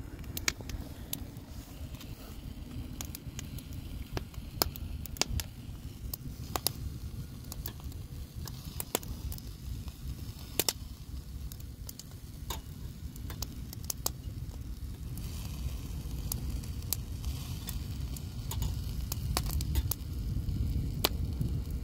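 Wood fire crackling with scattered sharp pops, and skewered sausages and shrimp sizzling on a grill over the coals, over a steady low rumble.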